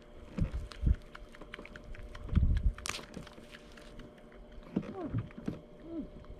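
Handling noise from gloved hands unhooking a metal microjig from a freshly landed red grouper: dull knocks and scuffs, a sharp click about three seconds in, and small clicks of the lure and hooks throughout. Near the end come a few short tones that bend in pitch.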